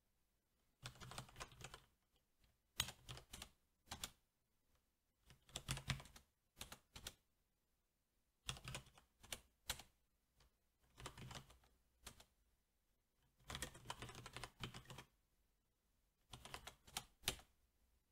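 Faint typing on a SteelSeries 6Gv2 mechanical keyboard with Cherry MX Black switches: seven quick runs of keystrokes, each a second or so long, separated by short pauses.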